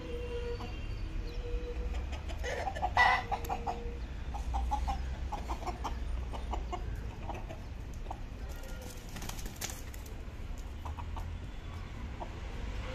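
Kadaknath roosters clucking in short repeated notes, with a louder brief flurry about three seconds in, over a steady low rumble.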